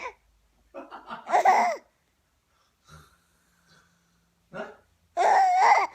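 Young child laughing in high-pitched bursts, pausing for a few seconds in the middle, then breaking into a loud, continuous laugh near the end.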